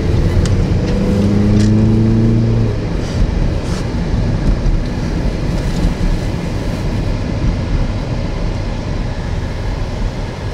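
A car driving, heard from inside the cabin: for the first two to three seconds an engine drone rises slowly in pitch as the car picks up speed, then a steady engine and road rumble.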